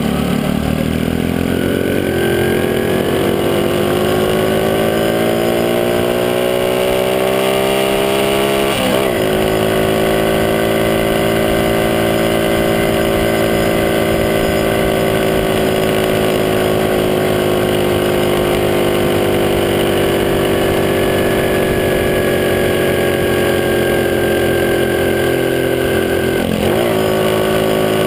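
Motorcycle engine under way, its note rising steadily for about eight seconds as it accelerates, then a brief dip about nine seconds in and a long steady cruise at constant pitch, with another short dip near the end.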